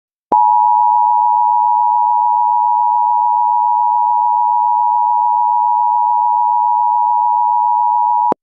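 Emergency Alert System two-tone attention signal: a loud, steady tone that starts a moment in, holds for about eight seconds and cuts off suddenly. It is the alert tone that heralds an emergency message.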